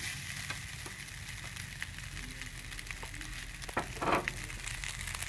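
Fried rice sizzling in a wok while a metal spatula stirs it, with scattered light clicks of the spatula and one louder scrape about four seconds in; the rice is being stir-fried dry.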